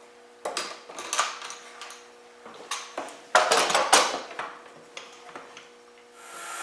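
Heavy clamps being undone and handled, clanking and rattling in several bursts, the loudest about three and a half seconds in. Near the end a motor starts and runs steadily.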